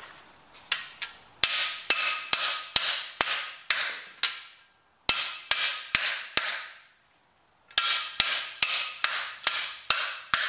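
Hammer striking the bar of a cam bearing tool, driving an old camshaft bearing out of a Chevrolet Vortec 4.3 V6 block. The metal-on-metal blows come in three runs at about two a second, each ringing briefly, with short pauses between the runs.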